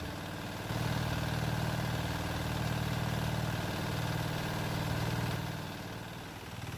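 A boat engine running steadily with a low hum, dying down toward the end.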